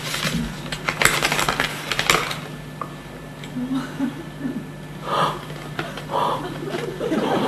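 A bunch of keys jingling and a paper envelope rustling as it is handled and opened, with sharp clicks in the first two seconds. Then quieter paper rustling with a couple of short soft sounds.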